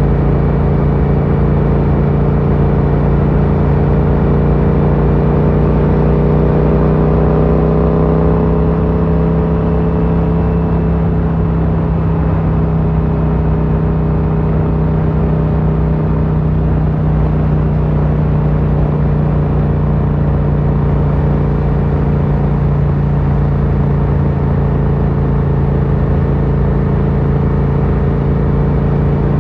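Yamaha MT-07's 689 cc parallel-twin engine through an Akrapovic carbon full exhaust, running steadily under way. Its pitch rises slightly about six to ten seconds in, then holds.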